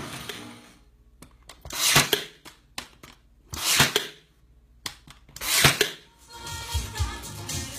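A power tool's motor winding down and stopping, then three short, loud bursts of noise about two seconds apart. Background music with a low beat starts near the end.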